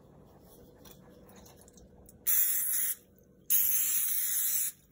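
Aerosol cooking spray hissing from the can into a glass baking dish to grease it, in two bursts: a short one about two seconds in, then a longer one just after.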